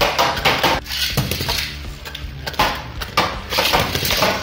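Beyblade Burst tops, Brave Valkyrie and Super Hyperion, launched from a string launcher and spinning in a clear plastic stadium. They clatter against each other and the stadium walls in a rapid run of sharp clicks and knocks.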